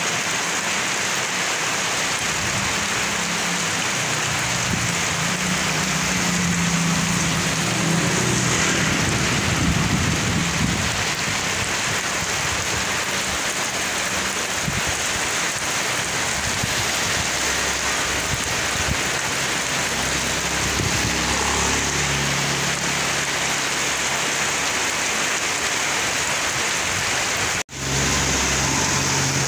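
Heavy rain pouring onto a wet asphalt street, a steady dense hiss. Passing vehicles add a low engine rumble now and then, most strongly about a quarter of the way in and again near the end.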